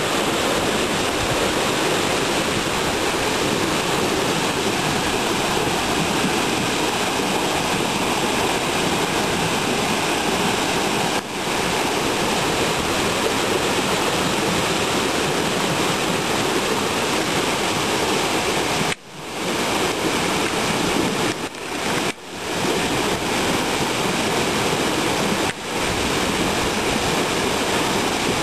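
Tall waterfall roaring steadily, a loud even rush of falling water. The sound cuts out for an instant a few times in the second half.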